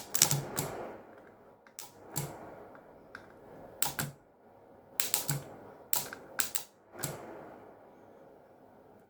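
Sharp electrical snaps and crackles from an overloaded 12 V broadband router circuit board burning out under overvoltage, about a dozen cracks singly and in quick pairs, each with a short fizz, stopping about seven seconds in.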